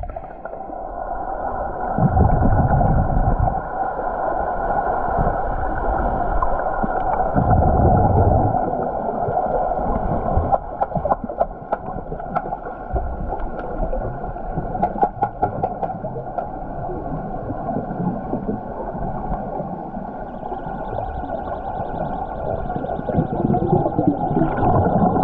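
Swimming-pool sound heard through a submerged camera microphone: a steady muffled hum, two low water swishes a few seconds in, and scattered clicks and bubbling in the middle.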